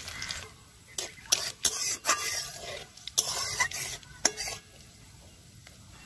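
Whole spices (bay leaves, cinnamon, cardamom, cumin seeds) sizzling in hot oil in a metal karahi as they temper, while a spoon stirs them, scraping and knocking against the pan several times. The stirring stops and the sizzle goes quieter about four and a half seconds in.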